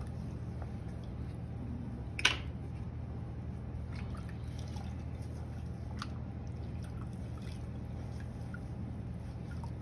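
Pottery tools being wiped with a wet sponge over a bucket, water dripping and trickling, with small ticks from the tools and one sharp knock about two seconds in, a lighter one about six seconds in. A steady low hum lies underneath.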